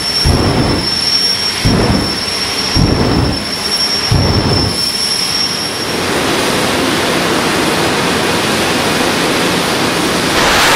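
Drag-racing funny car at the start line: a steady high whine under four deep booming blasts about a second apart, then a steady roar that grows louder near the end as the car launches.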